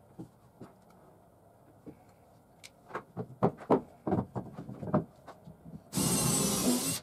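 Several sharp knocks as wooden blocks and a board are set down on a workbench. Then, about six seconds in, a cordless drill runs steadily at speed, boring a hole through the wooden board.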